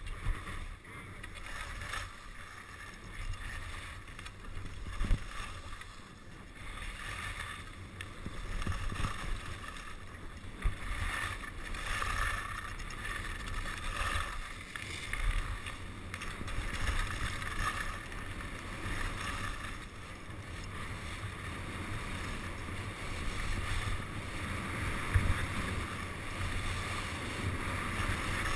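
Skis scraping and hissing over packed, tracked snow, rising and falling through the turns, with low wind rumble on the microphone and a few brief knocks.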